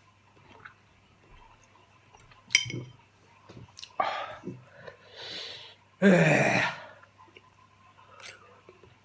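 A man's heavy breathing out and sniffing from the burn of very hot chillies, with a sharp click about two and a half seconds in and a loud voiced blast of breath about six seconds in.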